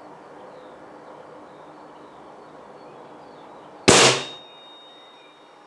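A single shot from a Swiss Arms Tac1 .22 air rifle, its pellet striking a phone: one sharp crack about four seconds in, followed by a brief thin metallic ring.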